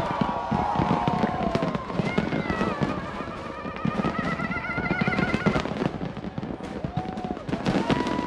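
Fireworks going off: a dense, continuous run of bangs and crackles.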